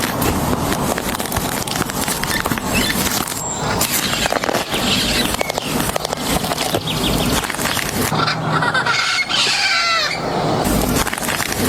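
A flock of parrots calling, with harsh, overlapping squawks.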